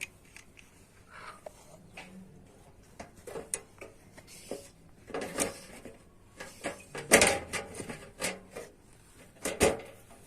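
Irregular knocks and clicks of objects being handled, the loudest about seven seconds in and again near the end.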